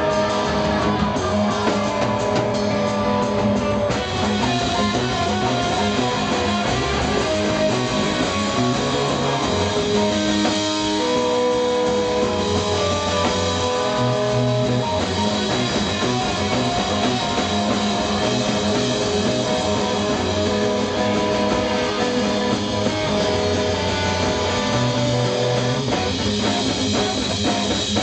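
Live rock band playing: electric guitar, bass guitar and drum kit, loud and steady with sustained guitar notes.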